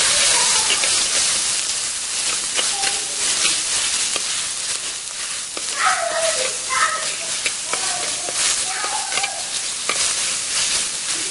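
Chopped onions and ginger-garlic paste sizzling in hot oil in a clay pot, stirred with a metal ladle that scrapes and taps against the pot wall again and again.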